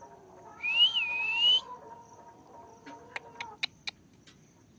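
Alexandrine parakeet giving one clear whistle lasting about a second: it slides up, dips and rises again. A few sharp clicks follow a couple of seconds later.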